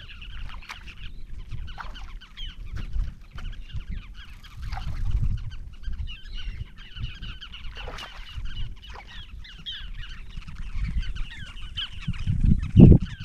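Many birds calling over one another in a dense, continuous chatter of short calls, over a steady low rumble, with one loud low thump near the end.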